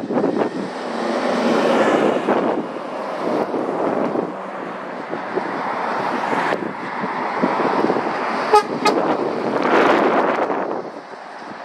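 Road traffic passing close by: a tractor towing a trailer, lorries and cars going past with engine and tyre noise that swells as each one nears. About eight and a half seconds in, a vehicle horn gives two quick toots.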